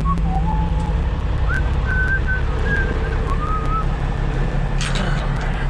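Truck engine running steadily under load, with someone whistling a short tune over it. A brief noisy burst near the end.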